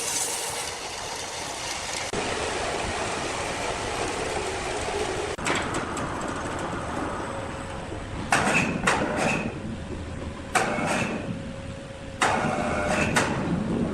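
Sawmill machinery running with a steady noise, then several loud, sudden bursts in the last six seconds.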